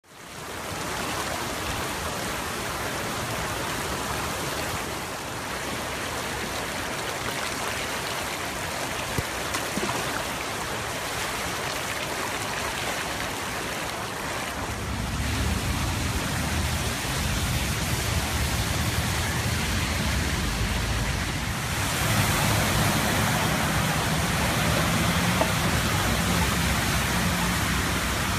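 Floodwater rushing across a street: a steady noise of fast-running water. About halfway through, a low rumble joins in under it.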